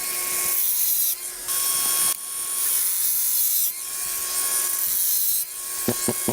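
Bosch brushless cordless angle grinder with a thin-rim diamond blade cutting into concrete. A high grinding noise comes in long passes, broken by brief lulls where the blade eases off the cut, over a steady motor whine that sags slightly under load.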